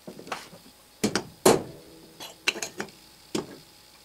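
A small hammer tapping a steel transfer punch against a cast aluminium base several times to mark hole centres. The sharp metallic taps come in short clusters, and the hardest comes about a second and a half in.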